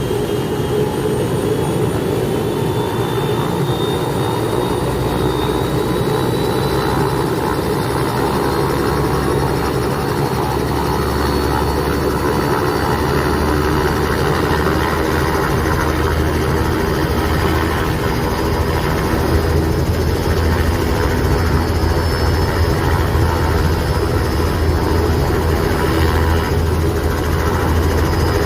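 Helicopter running steadily, its engine and rotors making a continuous loud noise, with a low rumble that grows stronger after about ten seconds and a faint high whine rising slowly near the start.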